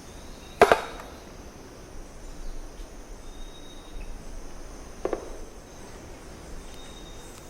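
Pale-billed woodpecker tapping on wood: one sharp knock just after the start and a softer one about five seconds in. This is light tapping of the kind that usually means the bird is testing the wood for good resonance. Insects drone steadily in the background.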